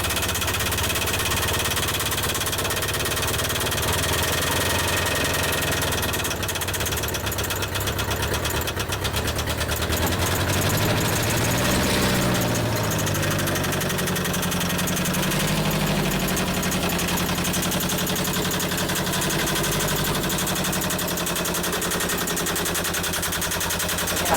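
Tata Sierra's diesel engine running after sitting unused for seven years, revved up and back down about halfway through. It runs without obvious trouble, taken as a sign that the formerly stuck engine is sound.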